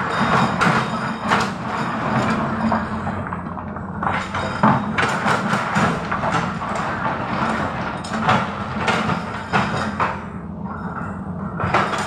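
Tracked excavator's diesel engine running steadily, with frequent metallic clanks and knocks from the working machine.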